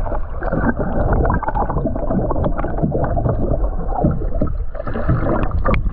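Water gurgling and rushing around a submerged camera, heard muffled from under the water, with scattered knocks.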